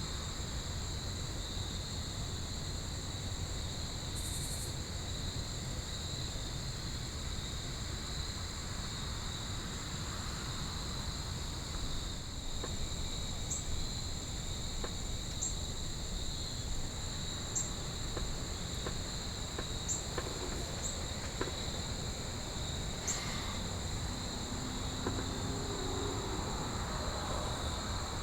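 Crickets or other field insects in a steady chorus, one band lower-pitched and one higher-pitched, over a faint low background rumble, with a few faint ticks now and then.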